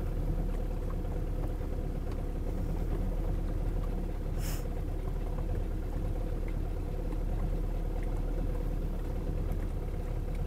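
Boat engine running steadily at slow cruising speed: an even, low hum with a constant tone.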